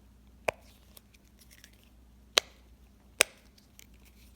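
Gummy-bear Simpl Dimpl fidget toy being pressed: three sharp clicks of its bubbles popping, about half a second, two and a half and three seconds in, with fainter ticks between.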